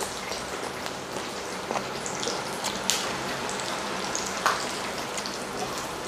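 Pork belly sizzling on a griddle pan over a portable gas stove: a steady crackle with scattered small pops.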